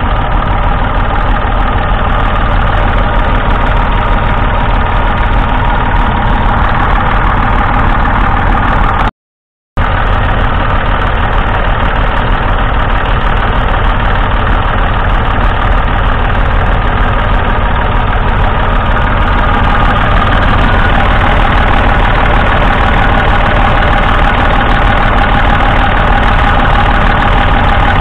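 A 1974 Massey Ferguson 148's 2.5-litre three-cylinder diesel engine idling steadily, heard up close. The sound cuts out for about half a second around nine seconds in.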